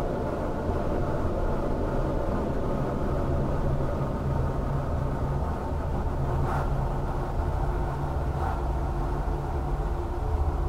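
Dark ambient soundscape: a steady, layered low rumbling drone with a dull top, with two faint airy swishes passing over it past the middle.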